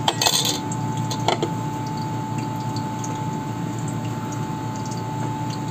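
Steady rushing noise with a constant faint hum running through it. A short scraping burst comes about a quarter second in and a brief click just over a second in.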